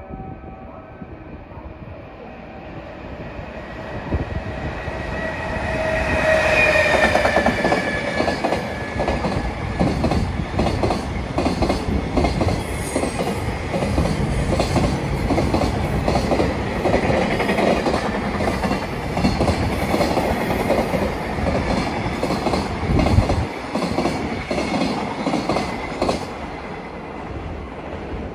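JR Freight container train hauled by an EF210 electric locomotive passing at speed. A whining tone dips slightly in pitch as the locomotive goes by about six seconds in. Then comes a long run of rhythmic wheel clickety-clack as the container wagons roll over the rail joints, fading near the end as the tail goes away.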